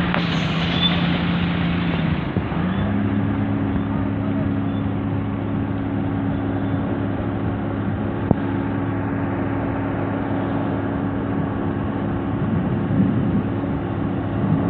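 Heavy truck engines running with a steady low engine note that shifts to a different pitch about two seconds in. A short hiss comes right at the start.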